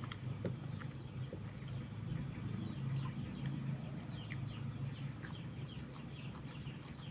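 Birds chirping: many short falling calls, growing more frequent from about three seconds in, over a low steady hum.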